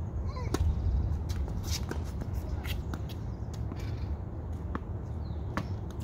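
Tennis ball being bounced and struck: scattered sharp knocks at an uneven pace over a steady low rumble, with a few faint chirps near the start.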